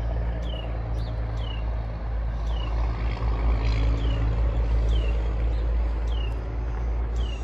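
A small bird repeating a short chirp that slides downward, about once or twice a second: the alarm call of a bird guarding its nest in the stacked traps. A steady low rumble like an engine running runs underneath and is the loudest sound.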